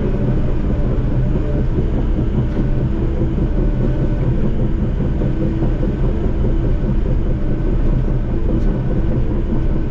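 Diesel engine of a tracked Cat machine running steadily under load, a continuous low rumble, as the machine works cutting in a road.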